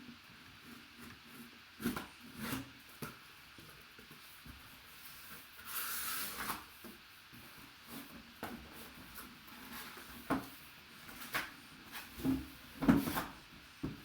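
A sealed cardboard helmet box being opened and handled: scattered knocks and thumps of cardboard and packing, with a short scraping, rustling stretch about six seconds in.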